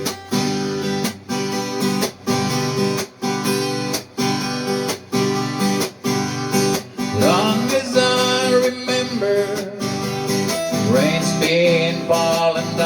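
Acoustic guitar strummed in a steady rhythm, about two strokes a second. About seven seconds in, a harmonica joins over the chords with a melody of bending, sliding notes.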